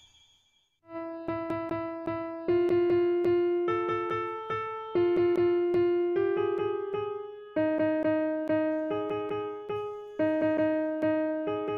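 Background music: after a brief gap, a keyboard tune starts about a second in, with quick repeated notes over a steady pulse.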